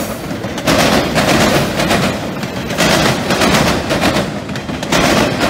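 Steel wheels of autorack freight cars banging across a railroad diamond crossing: loud clusters of sharp clacks about every two seconds, with steady rolling rumble between them.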